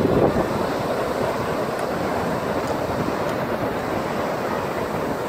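Ocean surf rushing steadily onto the beach, with wind buffeting the microphone.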